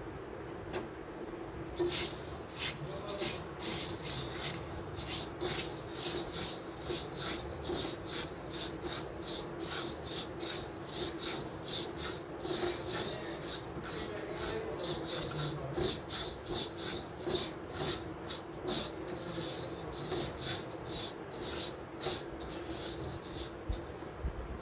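A silicone spatula is scraping and stirring dry semai grains around an earthenware clay pot as they dry-roast, in quick repeated strokes, several a second, starting about two seconds in. A steady low hum runs underneath.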